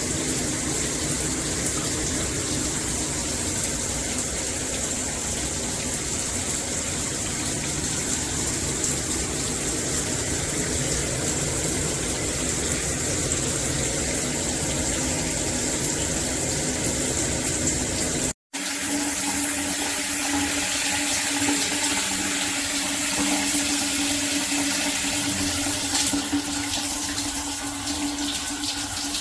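Water spraying steadily from a dual rain and handheld shower head combo. It cuts out for an instant about two-thirds through, then goes on with a steady low hum beneath the spray.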